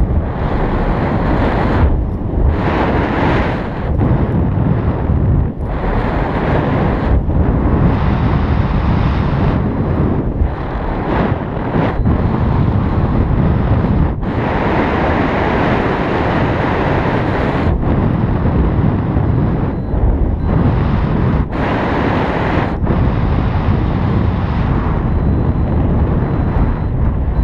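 Wind noise from the airflow of paraglider flight buffeting the pilot's camera microphone: a loud, deep rushing that swells and dips in gusts.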